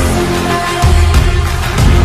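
Background music: a pop song with a heavy, steady beat.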